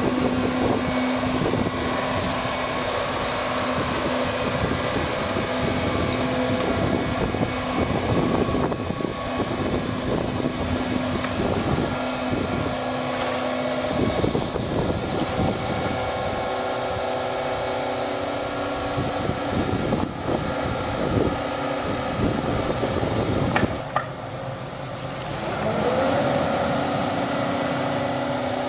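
Volvo tracked excavator's diesel engine running with the hum of its hydraulics as it swings and lowers a load. The steady drone drops away about halfway through and returns near the end with a rising whine as the machine works harder.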